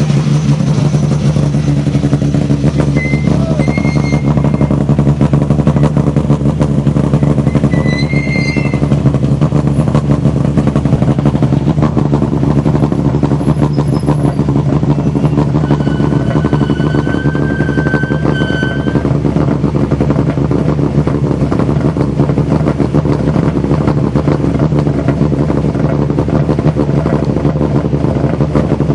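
Rally car engines idling steadily as the cars queue, with no revving. A few short, high, steady tones sound over the idle now and then.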